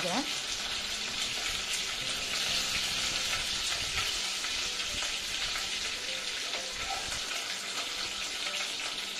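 Garlic cloves and curry leaves sizzling in hot oil with mustard seeds, urad dal and cumin, a steady frying hiss.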